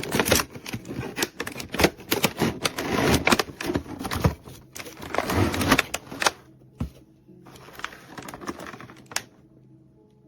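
Plastic remote-control T. rex toy clicking and clattering in dense, irregular runs, thinning out after about six seconds.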